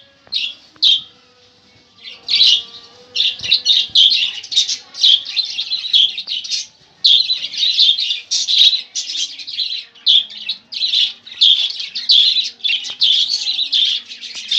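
Budgerigars chirping: a few separate calls at first, then fast, near-continuous chattering from about two seconds in, with a brief pause near the middle.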